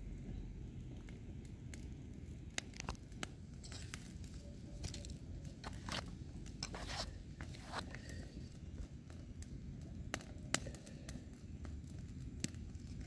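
Burning brush pile crackling, with irregular sharp pops scattered through, over a low steady rumble.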